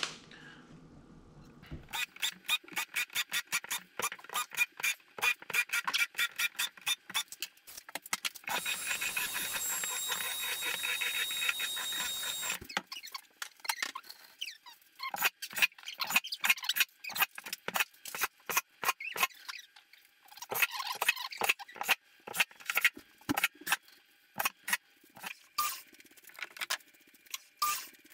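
Cordless drill driving screws into pine pallet slats, its motor running in spurts and then in one steady run of a few seconds, with the screws squealing into the wood. After that comes a string of irregular clicks and knocks.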